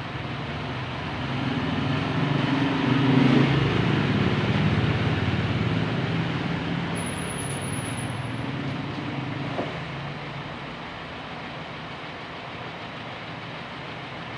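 A motor vehicle passing: its engine sound swells over a few seconds, its pitch drops as it goes by, and it fades away.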